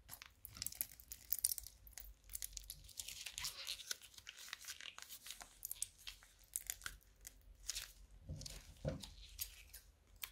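Crunchy slime being squeezed and worked by hand, giving a dense, irregular run of crackles and pops, with a lower, rougher squish a little past eight seconds in.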